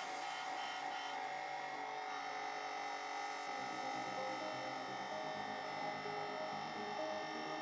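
Hydraulic press's electric pump motor humming steadily while the ram works, a many-toned electric hum with a little more low end after about three and a half seconds.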